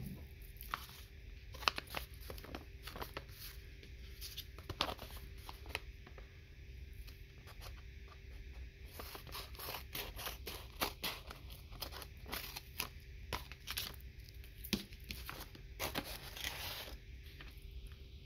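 Scissors cutting through a folded paper envelope in a run of short snips, with paper rustling as it is handled.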